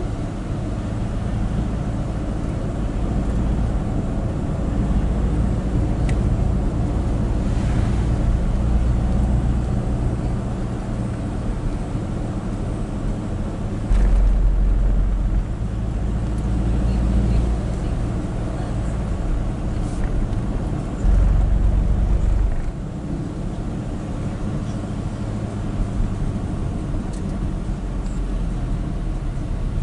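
Steady engine and road noise inside a moving vehicle's cabin, on a wet road. The deep rumble grows louder twice partway through, for a couple of seconds each time.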